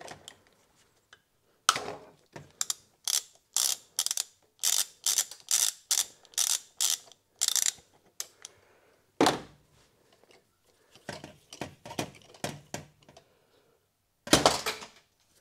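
Socket ratchet clicking as it is swung back and forth to undo a bolt on an air-conditioning compressor, in runs of sharp clicks about two a second. A louder knock comes about nine seconds in and a loud clatter near the end.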